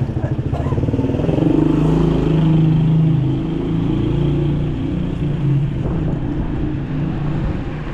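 A motor vehicle's engine running close by: it builds to its loudest about two seconds in, then eases off.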